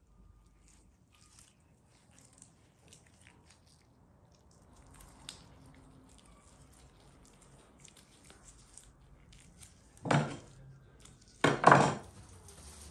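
Soft squishing and small clicks from gloved hands handling marinated meat. Near the end, baking paper crackles loudly twice as it is spread over aluminium foil.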